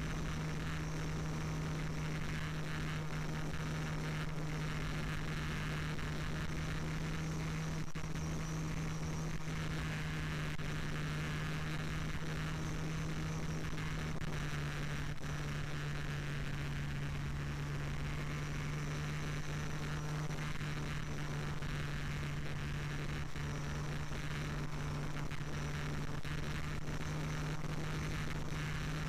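Electric motor and propeller of a radio-controlled Flyzone Sensei trainer plane, heard from its onboard camera in flight. It makes a steady low drone with a rushing hiss, and the pitch drops slightly about halfway through as the throttle eases.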